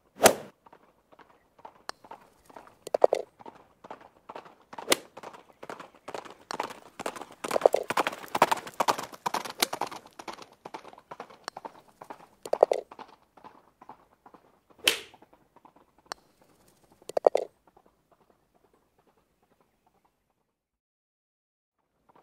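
Watermelon being bitten and chewed: crisp crunching bites and wet munching, in uneven bursts that are densest in the middle.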